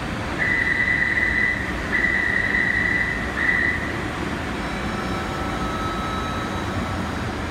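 Metro door-closing warning: a high electronic tone sounding in three bursts, two long and one short, over the steady hum of a train standing at the platform.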